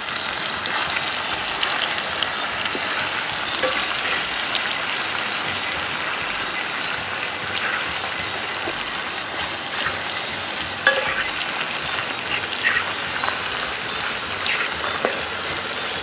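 Food sizzling in a pot over a campfire: a steady hiss with scattered pops and crackles.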